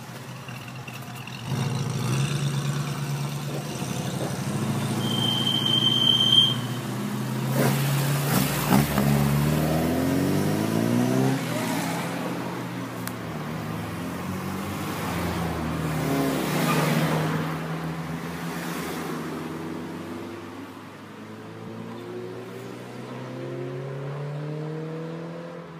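Several cars drive past one after another, engines accelerating and revving as each goes by, loudest a few seconds in. Near the end another car's engine rises as it approaches. A brief high tone sounds about five seconds in.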